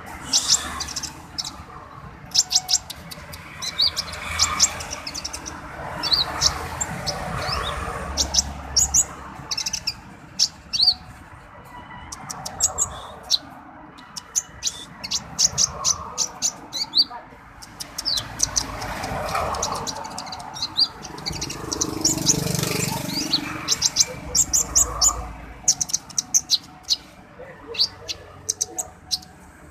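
Kolibri ninja sunbird singing its rapid 'dacok' song: repeated bursts of fast, high, thin chirps with short pauses between them.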